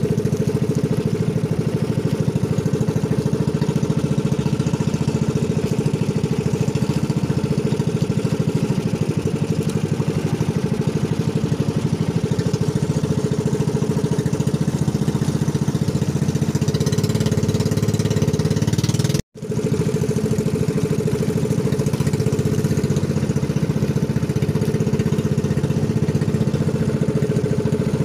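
Motorized outrigger boat's engine running steadily at a constant speed. The sound drops out for an instant about two-thirds of the way through.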